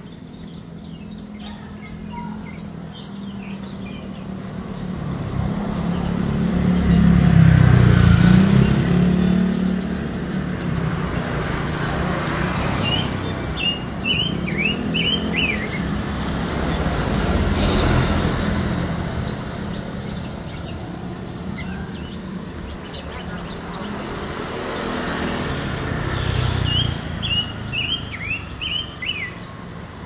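Several caged songbirds chirping, with a fast trill and two short bursts of song. Road traffic passes throughout, and a vehicle going by about seven to nine seconds in is the loudest sound.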